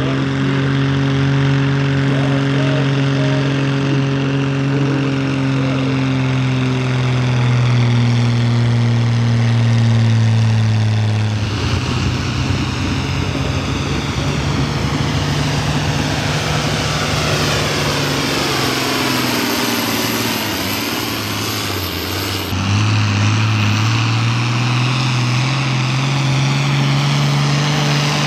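Diesel farm tractor engine at full throttle, pulling a weighted sled. Its pitch sinks slowly as the load builds; about eleven seconds in the steady note breaks up into a rougher, noisier sound for some ten seconds, and a steady note returns and climbs near the end.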